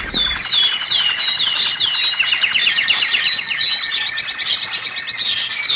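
Birds chirping: a run of quick downward-swooping whistles, about four a second, then a fast, high, rattling trill through the middle before the swooping chirps return near the end.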